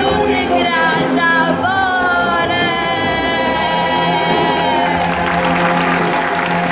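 A woman singing the last long, held note of a song over backing music. About five seconds in, the note ends and the audience breaks into applause.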